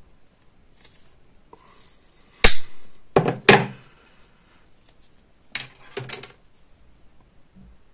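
Side cutters snipping through thin plastic tubing with one sharp click about two and a half seconds in, then the metal cutters knocking down onto a wooden table. Smaller clicks of small plastic parts being handled follow near six seconds.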